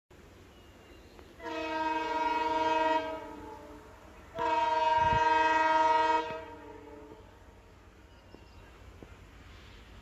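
Horn of a Plasser track maintenance machine sounding two long blasts, the second a little longer, each with several steady tones at once.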